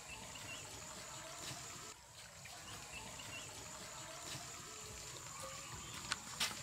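Quiet rural outdoor ambience: a steady hiss with a faint, high, steady tone and a few small chirps, and a couple of light taps near the end.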